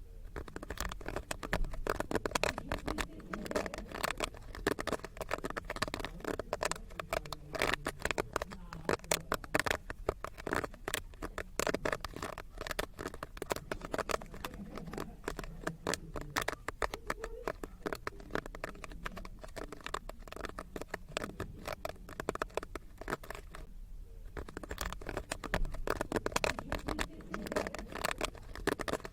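Popcorn popping: a dense, irregular run of pops, thinning briefly about 24 seconds in.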